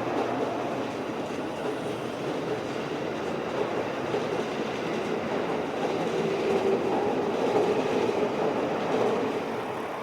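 A train moving along the track, its wheels running on the rails. It grows louder in the second half, then eases off near the end.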